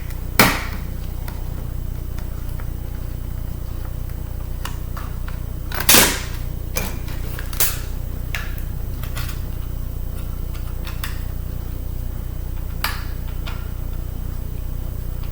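Sharp clicks and knocks of small metal parts and tools being handled while a laptop CD drive is taken apart, with a few faint ticks in between. The loudest knock comes about six seconds in and rings briefly. A steady low hum runs underneath.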